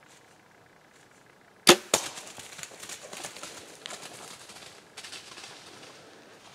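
A bow shot: a sharp crack of the bowstring's release, then about a quarter second later the smack of the arrow striking a whitetail buck. Then several seconds of irregular rustling and crashing through dry leaves as the hit deer runs off, fading toward the end.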